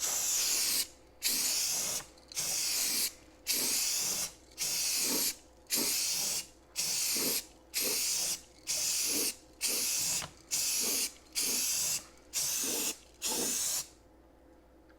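Aerosol can of Rust-Oleum primer sealer spraying in a quick series of short hissing bursts, about one a second, which stop near the end.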